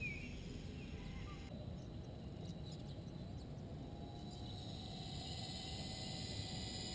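Faint high whine of a small electric RC helicopter's motor and rotors, growing louder over the second half, over a low rumble of wind on the microphone.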